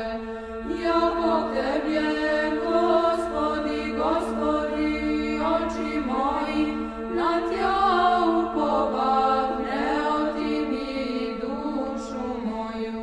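Orthodox church chant: voices sing a gliding melody over a steady held drone note.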